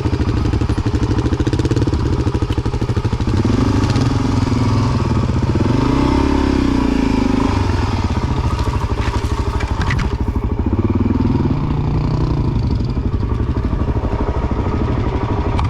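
Single-cylinder four-stroke dirt bike engine running, its pitch rising and falling with the throttle, with a couple of sharp knocks around two-thirds of the way in.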